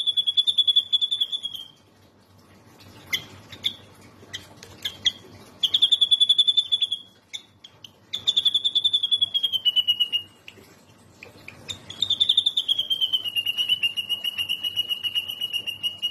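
A songbird singing long, rapid, high trills of about two seconds each, some sliding slightly lower at the end, separated by short sharp calls, with a longer trill starting near the end. This is tutor song played for white-rumped shama (murai batu) to learn from.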